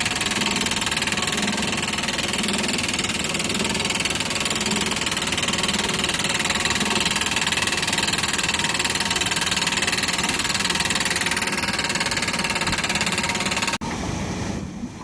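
Hydraulic anchor drilling rig running steadily with a dense engine and machinery noise. The noise drops suddenly near the end.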